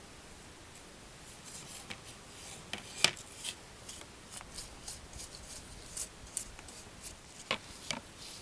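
Hand crafting work: an irregular series of short snips and scrapes, with a sharp click about three seconds in and another near the end.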